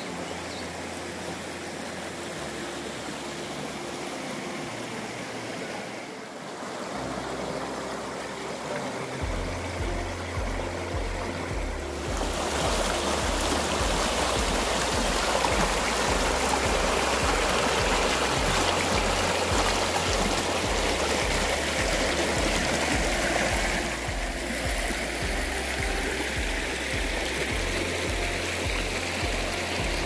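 Background music with a low, pulsing bass line throughout. From about twelve seconds in to about twenty-four, the louder rush of a shallow stream pouring over rocks.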